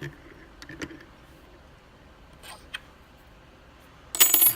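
Small clicks from a just-picked mortise lock cylinder and the picks being handled, then a louder clatter of under half a second near the end.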